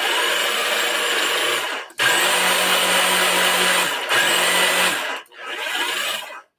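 Food processor motor running in four short runs with brief stops between, the last one quieter. It is chopping a thick raw quiche mixture of vegetables and sea moss that it is not processing as wanted.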